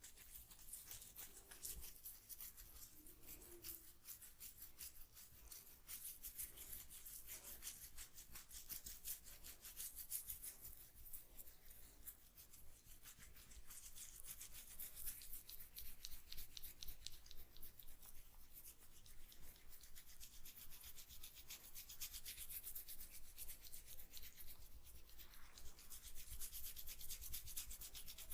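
Oiled hands rubbing over hair and skin in a head massage, close to the microphone: soft, quick, continuous rubbing strokes.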